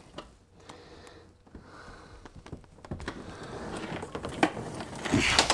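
Rustling and light clicks of Ethernet cables being handled, sparse at first, then busier and louder over the last couple of seconds.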